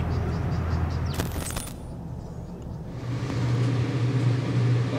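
A short clattering burst about a second in, then, from about three seconds in, a steady low mechanical hum inside a camper van.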